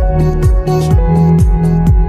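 Electronic background music with a steady kick-drum beat, about two beats a second, over held synth tones and crisp high percussion.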